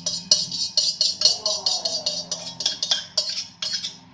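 A metal spoon scraping and clinking against the inside of a stainless-steel mixer-grinder jar as thick ice-cream mix is scraped out, in quick, irregular strokes several times a second.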